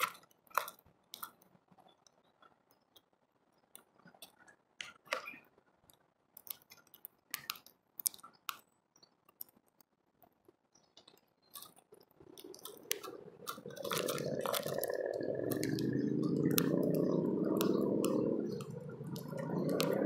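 Small birds pecking and cracking seed at a bird feeder: scattered sharp clicks and crunches. About twelve seconds in, a louder sustained sound with a wavering pitch builds and continues, drowning out the pecking.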